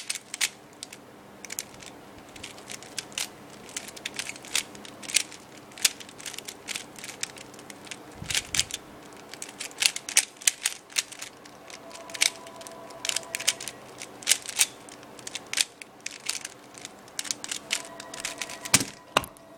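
Rubik's Cube being turned one-handed: the plastic layers clack and click in quick irregular runs of turns.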